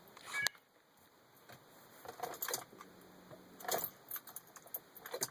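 Car keys jangling with a series of sharp clicks, likely in the ignition of a 2002 Nissan Maxima, and a faint steady hum in the second half. The engine does not crank or run.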